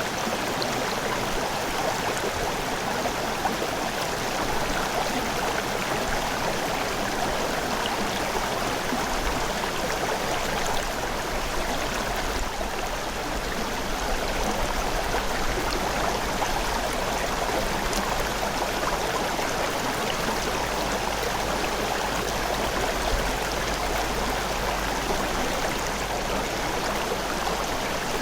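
River water running steadily over rocks, an even rushing babble with small gurgles.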